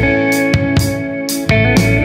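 Instrumental break in a rock song: electric guitar chords ringing over bass and a steady drum beat, with no singing.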